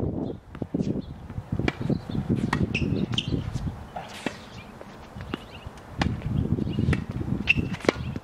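Tennis balls being volleyed back and forth with rackets, a string of sharp pops from balls striking racket strings, roughly one every second, over a low uneven rumble.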